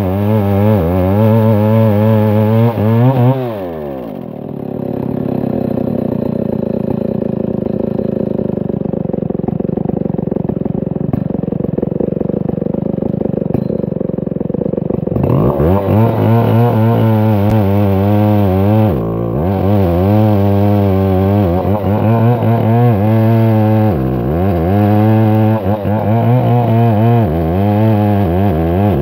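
Stihl 070 chainsaw ripping an ironwood log lengthwise, its big two-stroke engine running at full throttle under load. About three seconds in the engine drops to idle while the saw rests on the log, then about fifteen seconds in it revs back up and cuts again, its pitch dipping briefly twice.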